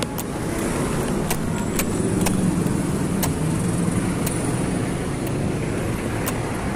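Road traffic passing close by: car engines and tyres making a steady low hum that swells a couple of seconds in. Sharp clicks come about once a second.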